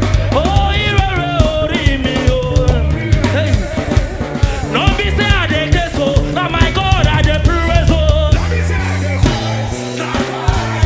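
Live gospel praise music: a band with drum kit and bass under a man's lead vocal. The bass and drums drop out briefly near the end while the voice carries on.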